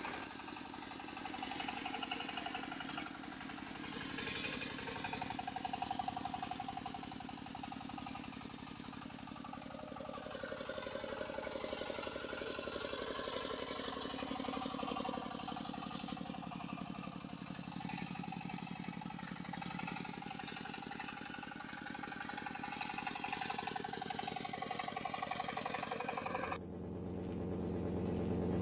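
Remote-control model vehicles running, a busy mechanical whirring and clatter of small motors and gears with shifting tones. About 26 seconds in it changes abruptly to a lower, steadier engine-like hum.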